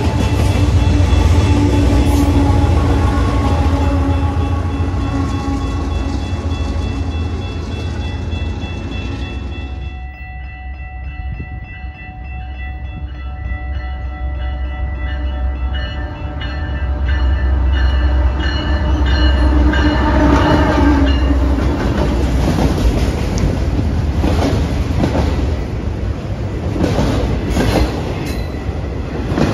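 A train passing: a steady low rumble of locomotives and rolling cars, with steady tones riding above it. About ten seconds in the sound drops off suddenly and changes character, then builds again.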